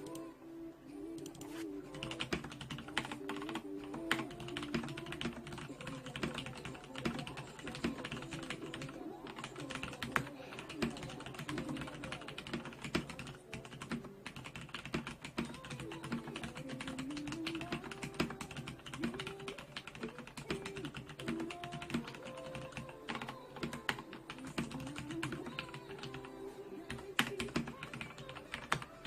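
Continuous typing on a Leopold FC900R PD mechanical keyboard with non-clicky Cherry MX Brown tactile switches: a rapid, uneven clatter of keystrokes that starts about two seconds in.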